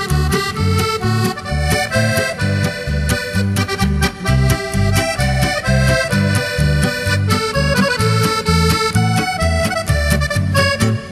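Lively instrumental music with a steady bouncing bass beat of about two low notes a second.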